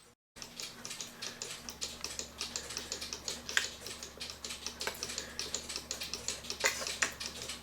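Rapid, irregular clicking from a mechanical cuckoo clock movement being set running, with a few sharper clicks standing out.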